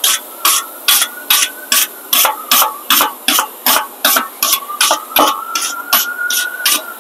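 Hand wire brush scrubbed back and forth over a rusty steel wheel hub, about two and a half harsh scratching strokes a second, cleaning corrosion off the hub face before a new brake rotor goes on.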